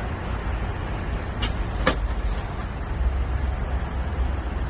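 Street ambience: a steady low rumble, like traffic, with two short sharp clicks about one and a half and two seconds in.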